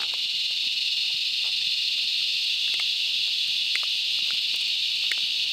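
A steady, high-pitched chorus of insects, with a few faint soft clicks over it.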